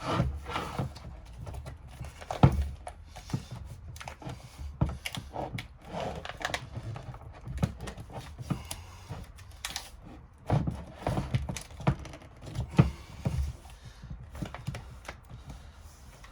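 Irregular clicks, taps and knocks of hands stretching and pressing smoked tint film over a plastic motorcycle headlight to push out air bubbles, with a sharper knock about two seconds in and a cluster of louder knocks past the middle.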